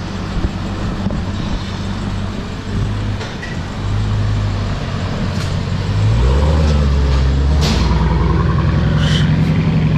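Dodge Challenger SRT Hellcat's supercharged 6.2-litre V8 running at low speed with its mid-mufflers deleted and the exhaust straight-piped through, a deep, steady exhaust rumble. It grows louder about six seconds in as the car drives past.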